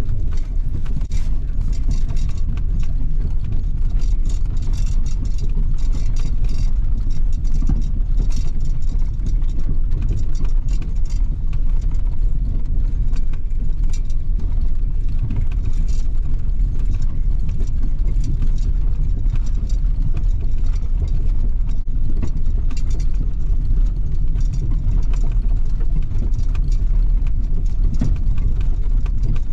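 1996 Ford F-150 pickup heard from inside the cab while driving slowly over a snow-covered trail: a steady low engine and road rumble, with frequent light clicks and rattles over it.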